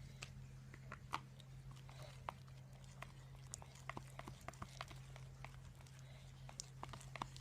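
Homemade glue-and-detergent slime being mixed, giving faint, irregular sticky clicks and squelches as it pulls away from the bowl, over a low steady hum.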